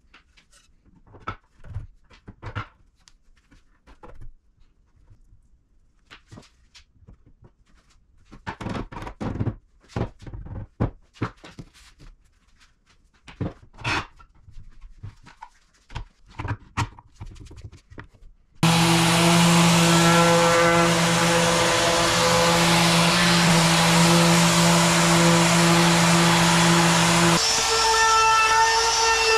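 Scattered knocks and taps of wooden parts being handled on a workbench. About two-thirds of the way in, a DeWalt compact router starts abruptly and runs loudly and steadily, its tone shifting near the end.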